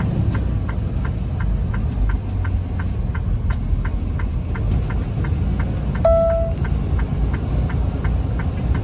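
Steady low rumble of a semi-truck's diesel engine heard from inside the cab, with a turn signal clicking evenly about two and a half times a second. A single short beep sounds about six seconds in.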